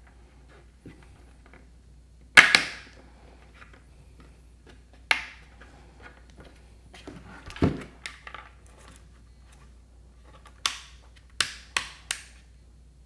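Sharp plastic clicks and knocks from handling a 3D-printed PETG housing, spaced a few seconds apart, the loudest about two seconds in. A quick run of clicks near the end as a rocker on-off switch is pressed into its rectangular cutout in the housing wall.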